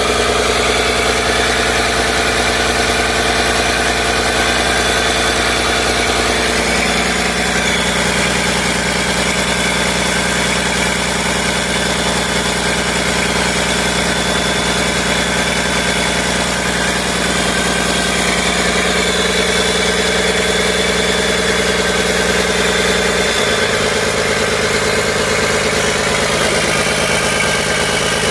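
Komatsu PC200 excavator's turbocharged six-cylinder diesel engine running steadily on a test run just after an overhaul, with its rocker cover off and the valve train exposed.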